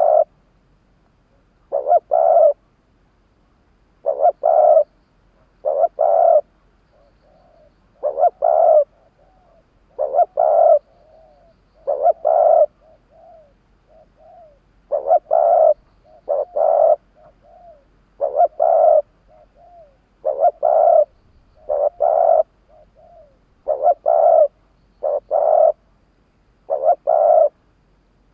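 Caged decoy spotted dove cooing repeatedly: loud groups of two or three coos every couple of seconds, with softer coos in between.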